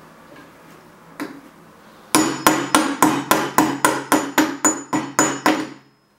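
Metal meat-tenderizer mallet striking a banana frozen rock-hard in dry ice on a cutting board. There is a single blow about a second in, then a rapid, even run of about five blows a second for some three and a half seconds, which stops suddenly near the end.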